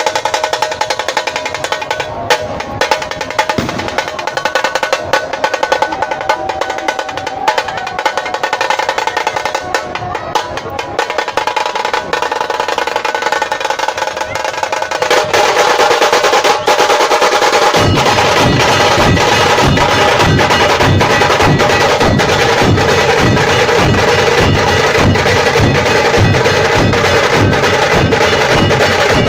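Nashik dhol drumming: a fast, dense roll of drum strokes that gets louder about halfway through, then deep, evenly spaced bass strokes join a few seconds later.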